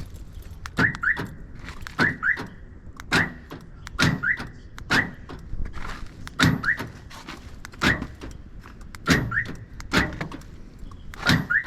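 Aftermarket car alarm's keyless entry cycling a truck's power door lock actuators over and over. Each cycle brings a sharp thunk of the locks and short chirps from the alarm siren, about once a second.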